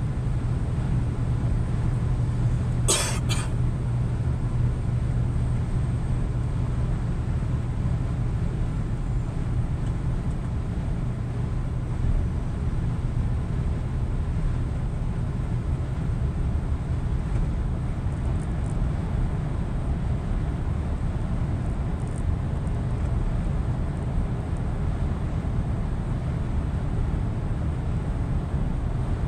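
Scania truck cruising at steady motorway speed, heard from the cab: a constant low engine drone over even tyre and road rumble. About three seconds in there is one brief, sharp noise.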